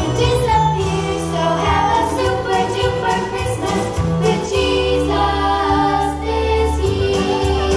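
Christmas music with jingle bells, a bass line and a steady beat.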